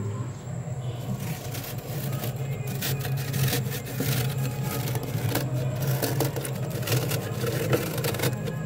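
Fingers scraping and digging soft, flaky frost off the inside wall of a freezer: a rapid run of scratchy crunches, busiest from about three seconds in, over a steady low hum.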